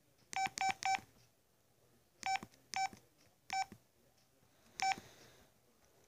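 Flip phone keypad beeps as its navigation keys are pressed through the menus: seven short beeps of one pitch, three in quick succession, then four spaced further apart.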